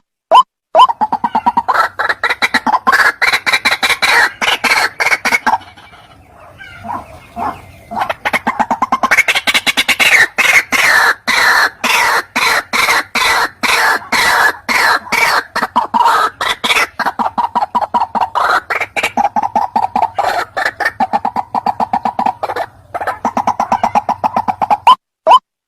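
White-breasted waterhen (ruak-ruak) calling: a long, fast run of harsh repeated calls, with a short break about six seconds in. Just before and after the run, the calls come as evenly spaced single notes about two a second.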